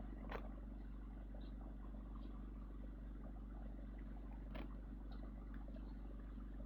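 A vehicle engine running with a steady low rumble, with a few faint clicks, one just after the start and one about four and a half seconds in.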